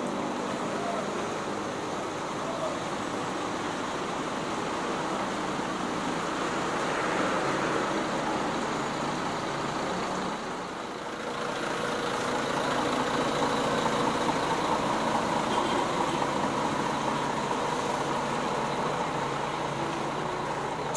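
Coach bus diesel engines running as the buses manoeuvre, over a steady hiss of rain; the engine noise grows a little louder about halfway through.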